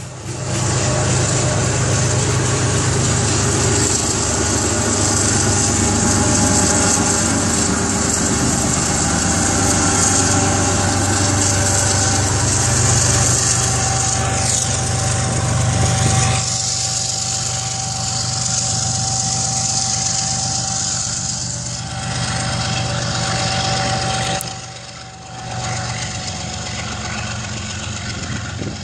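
Diesel freight locomotive running as a freight train rolls past, a steady low engine hum under hissing wheel and rail noise. About 16 s in the sound turns quieter, with a thin steady whine over it.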